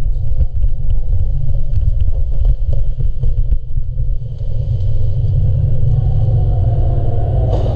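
Continuous low rumble of movement and handling noise on a mask-mounted action camera's microphone as the wearer moves quickly, with scattered faint taps and clicks.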